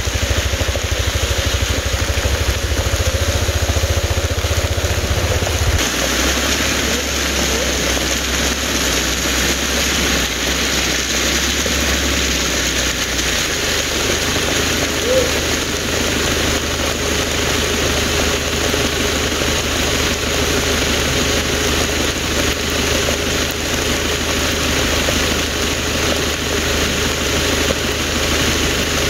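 A vehicle's engine running steadily at low speed, under a steady hiss of road and wind noise; the low rumble shifts about six seconds in.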